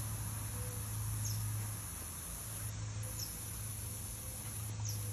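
Steady hiss of water spraying over a garden lawn, with a low steady hum underneath.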